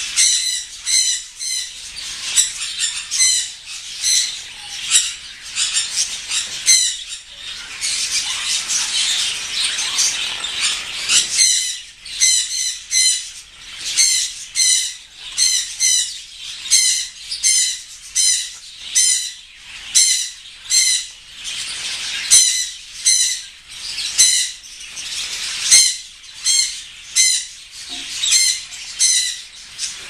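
African grey parrots calling with short, sharp whistled chirps, repeated a little more than once a second, over a steady high bird chatter that thins out about eleven seconds in.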